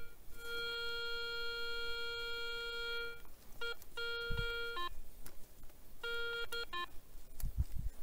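Garrett ACE 250 metal detector sounding its target tone: one long steady beep of about three seconds, then several shorter beeps. A couple of the shorter beeps jump briefly to a higher and then a lower pitch. A few dull thumps come near the middle and the end.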